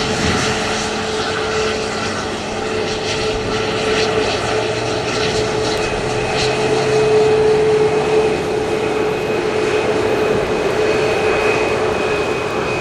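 Airliner engines running near an airport taxiway or runway, a steady rushing noise with a steady whine on top, swelling a little about two-thirds of the way in.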